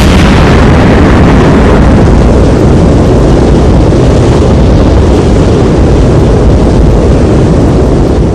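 Nuclear explosion sound effect: a loud, steady, unbroken blast of noise, heaviest in the low end.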